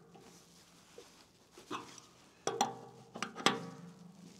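A handful of sharp metallic clinks with a short ring, mostly in the second half, from hand tools working the metal mount of an excavator LED boom light as it is angled and tightened.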